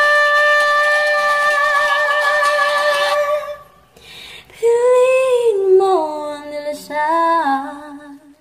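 A woman singing the close of a song: she holds one long high note with a slight vibrato for about three and a half seconds, then after a short break sings a few falling phrases that die away at the end.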